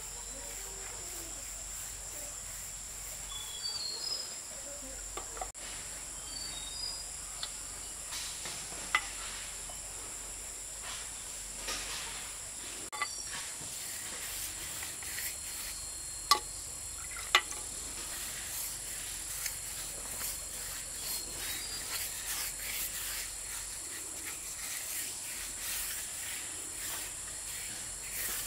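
Steady, high-pitched drone of insects, with a few faint short bird chirps. Several sharp knocks stand out, the loudest two a second apart past the middle.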